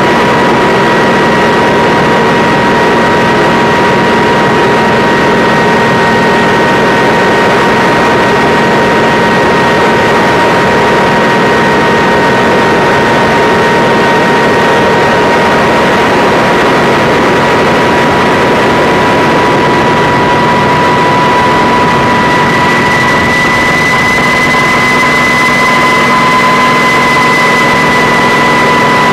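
Kamov Ka-26 helicopter's twin radial piston engines and coaxial rotors running steadily and loud, with a steady high whine over the engine noise that rises slightly in pitch near the end.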